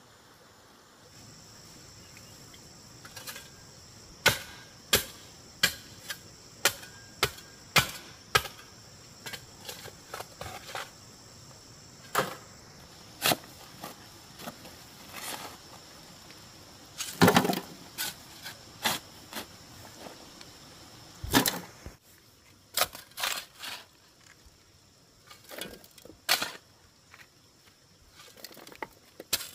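Stones and masonry tools knocking against stone: a string of sharp, irregular clacks, one or two a second, with a louder, longer clatter a little past halfway. A faint high insect drone runs under the first third.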